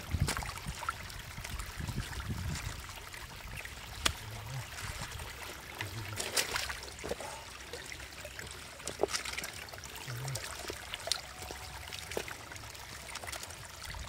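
Shallow muddy water trickling over stones and mud, with scattered small splashes and knocks as catfish are grabbed by hand from the water and dropped into a wicker basket.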